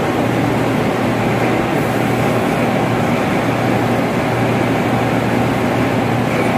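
Steady drone of running ventilation machinery: a constant low hum under an even rushing noise, with no change in level.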